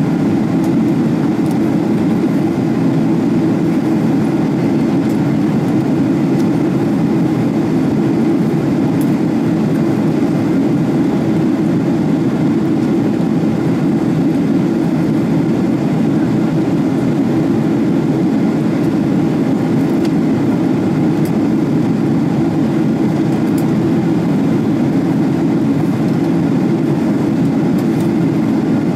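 Steady in-flight cabin noise of a Boeing 777-300ER heard from a window seat beside the wing: the drone of its GE90-115B engines and the rush of air along the fuselage, an even deep rumble.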